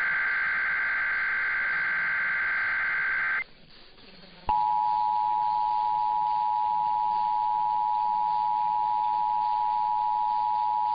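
Emergency Alert System SAME header: a harsh warbling digital data burst that ends about three seconds in. After about a second's pause the steady two-tone EAS attention signal starts and holds.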